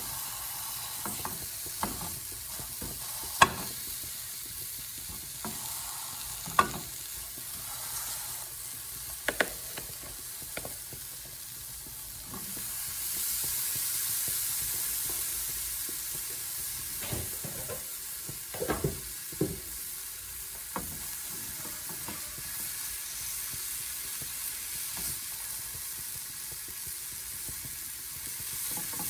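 Cheese sizzling as it melts in a hot frying pan, stirred and scraped with a metal spoon, with a few sharp taps of the spoon against the pan. The sizzle swells for a few seconds around the middle.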